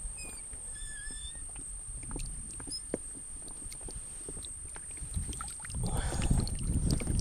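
Water splashing and light knocks around a small fishing boat, growing louder in the last second or so. A few faint bird chirps are heard near the start.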